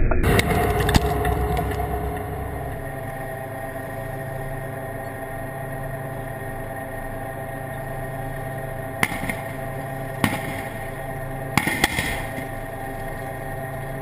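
Steady hum of a tank's running engine heard from a camera mounted on its turret, with several sharp bangs about nine, ten and twelve seconds in. The first two seconds are louder and noisier, fading down to the hum.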